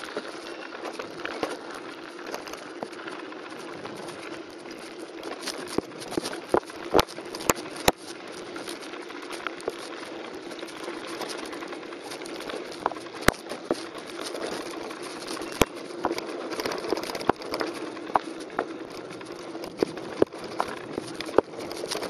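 Mountain bike rolling downhill on a gravelly dry stream bed: a steady crunch of tyres on grit with frequent sharp knocks and rattles as the bike runs over bumps.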